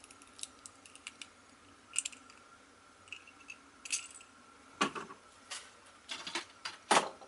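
Beyblade Burst top parts (layer, forge disc and driver) clicking and ticking as they are fitted together by hand. About five seconds in come several louder hard knocks and clatters.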